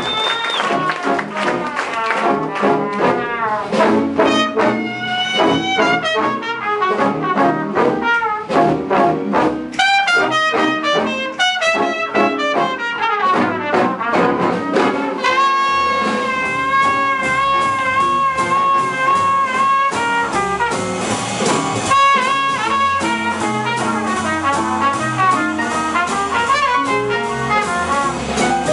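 Jazz big band playing live, with the brass out front: trumpets and trombones over piano, bass and drums. About halfway through, the band holds one long note for several seconds before moving on.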